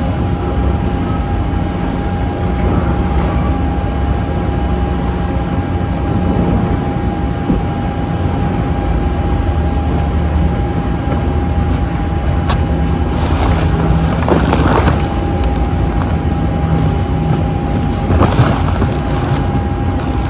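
Heavy truck engine running steadily, with a few brief hissing, squealing sounds about two-thirds of the way through and again near the end.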